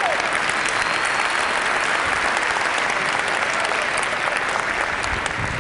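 Audience applauding: a dense, steady clapping that eases off near the end.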